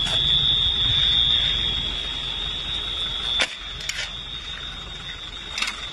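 An alarm sounds one steady, unbroken high-pitched tone over a low rumbling noise. The rumble drops off about halfway through, and there are a few sharp clicks.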